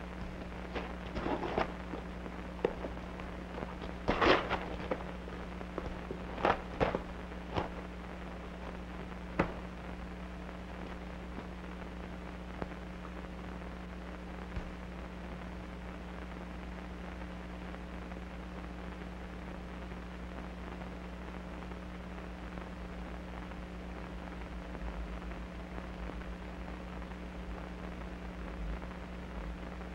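A package of crackers being opened and the crackers handled and broken: a few sharp crackles and snaps in the first ten seconds, the loudest about four seconds in. After that only the steady hum and hiss of an old film soundtrack remain.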